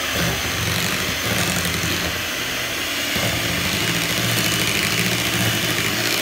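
Electric hand mixer running steadily at speed, its beaters churning sweet potato pie filling with freshly added eggs in a ceramic bowl. The motor gives a steady high whine.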